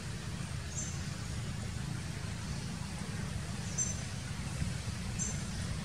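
Outdoor ambience: a steady low rumble with a short, high chirp three times.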